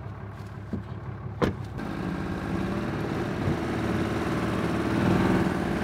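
Pickup truck engine running at idle, with a door shutting in one sharp knock about a second and a half in; after it a louder, steady rumble and hiss fill in.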